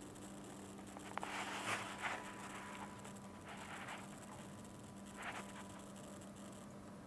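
A few brief rustling, handling sounds over a steady low electrical hum, clustered about a second in, again around the middle and once more near the end.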